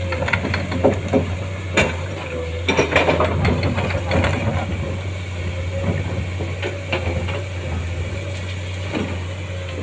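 A Komatsu hydraulic excavator's diesel engine runs steadily as a low drone with a steady tone above it. The bucket digs through soil and tree roots, giving a run of knocks and scrapes in the first half that thin out later.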